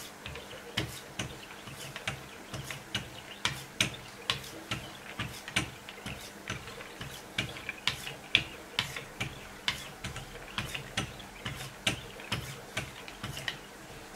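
Wicked Edge guided-rod sharpener's diamond stones stroked by hand along the clamped edge of a Benchmade Nakamura 484's M390 steel blade. A steady run of short scraping strokes, about two a second, each with a click.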